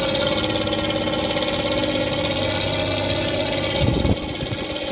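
Fiat 683 N truck's diesel engine running steadily as the truck drives off, with a short louder low burst about four seconds in, after which it is a little quieter.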